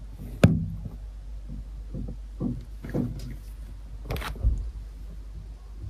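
Knocks and bumps from a car being loaded, heard through a window: a sharp knock about half a second in, a few softer clicks, and a heavier thump about four seconds in, over a low steady hum.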